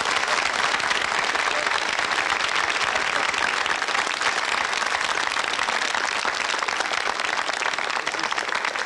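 Studio audience applauding: many people clapping steadily together.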